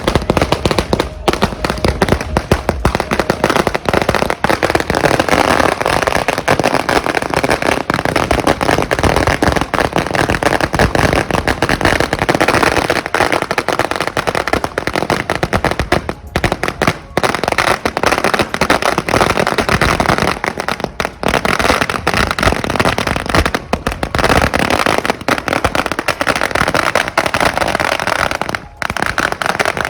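Wedding-procession fireworks and firecrackers going off in a dense, near-continuous barrage of rapid bangs and crackles, with only a few brief breaks.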